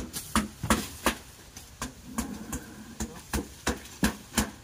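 Long digging bar jabbed repeatedly into the ground, about three sharp strikes a second.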